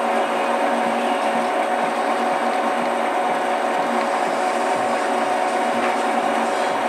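TV-4 'Shkolnik' school metal lathe running under power while turning a peg, its spindle and gears giving a steady hum with a whining tone.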